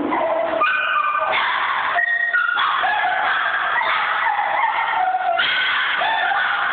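Dogs whining and yipping without a break, several high-pitched cries overlapping at once.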